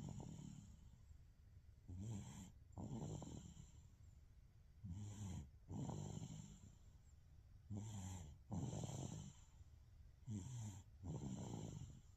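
A sleeping baby snoring, with about four breaths. Each breath is a short snore followed by a longer one, roughly every two and a half to three seconds.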